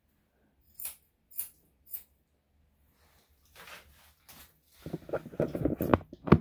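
Three quick snips of grooming scissors trimming the dog's face fur, about a second in. Then a second or so of dense rattling handling noise and a sharp knock near the end as the camera is picked up and set down in a new spot.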